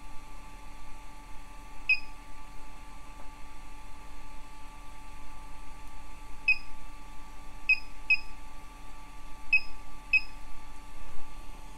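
BBQ Guru DigiQ DX2 temperature controller giving short high beeps as its buttons are pressed to lower the set temperature, six beeps at uneven intervals. Its blower fan runs underneath with a steady hum.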